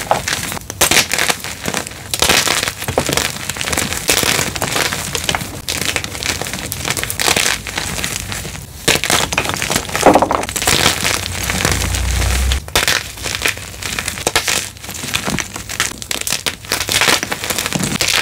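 Blocks of gym chalk being crushed close to the microphone: dense, continuous crunching and crumbling, with many small cracks packed together.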